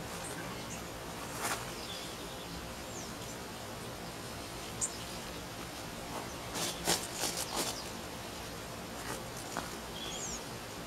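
Leaves and stems of cherry tomato plants rustling and crackling as the fruit is picked by hand, with a cluster of crackles just past the middle. A steady faint hiss runs underneath, with a couple of short high chirps.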